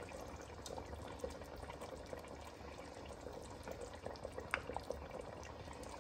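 A pot of hot coconut fish curry: a spoonful of tamarind pulp poured in from a plastic ladle at the start, then the liquid bubbling faintly with many small pops, over a low steady hum.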